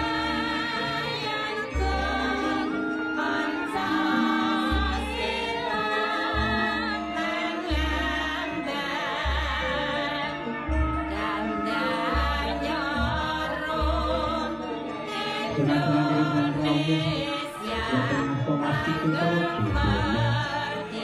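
Music with singing: a voice holding long, wavering notes over deep bass notes that come about every second or two.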